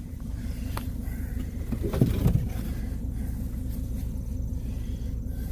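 Diesel truck engine idling steadily, with a sharp knock under a second in and another brief sound around two seconds.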